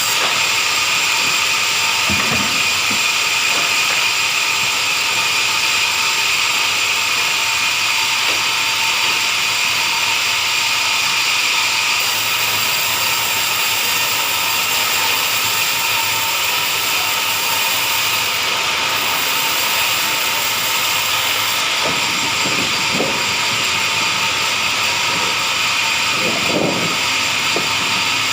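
A wood-sawing machine running steadily with a constant high whine over a hiss. A few dull knocks come about two seconds in and again near the end.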